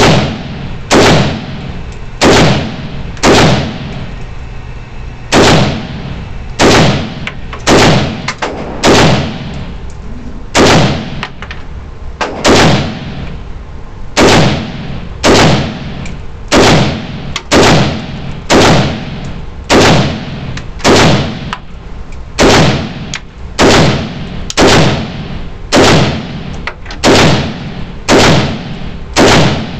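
Romanian WASR-10 AK-47 rifle firing Silver Bear 7.62×39 ammunition in steady semi-automatic fire, about one shot a second, with a short pause about four seconds in.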